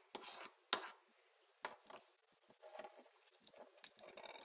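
Faint, scattered clicks and soft rustles of handling, several short ones spread through the few seconds.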